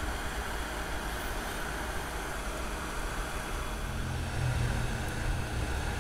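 X-Tronic 5040-XR3 hot air rework gun blowing at low speed: a steady hiss of air and fan. A low hum grows louder for a moment about four seconds in.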